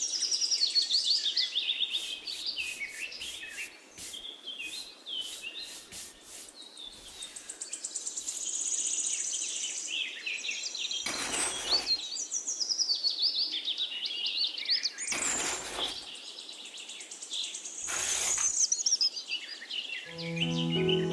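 Small birds chirping and singing, with many quick calls throughout. Three short rushes of noise come in the second half.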